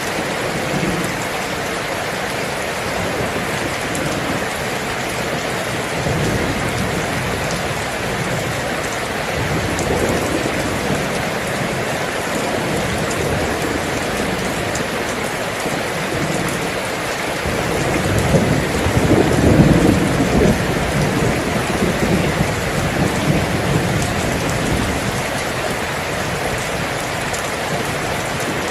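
Steady rain falling, with low rolling rumbles of thunder swelling up a few times; the loudest rumble comes about two-thirds of the way through.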